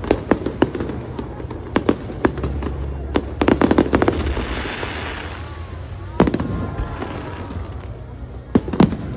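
Aerial fireworks bursting overhead: irregular sharp bangs, with a rapid cluster of crackling pops about three and a half seconds in, a loud single bang about six seconds in and another pair of bangs near the end.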